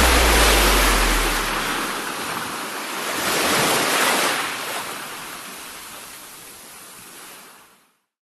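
Sea surf: waves washing in, swelling about three seconds in and then fading out to silence near the end. A low music note dies away in the first second or so.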